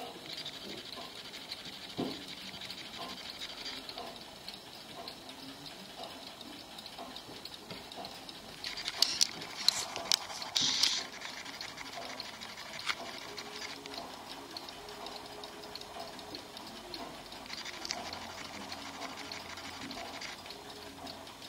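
Brass clockwork movement of a circa-1900 Zappler miniature pendulum clock ticking lightly and steadily. A few louder sharp clicks and knocks come about halfway through as the clock is handled and set down.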